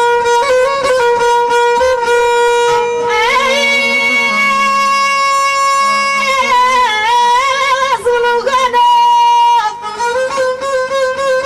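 Middle Atlas Amazigh music: a violin plays a high melody of long held, ornamented notes with sliding pitch bends. A lower note sounds beneath it for a few seconds in the middle.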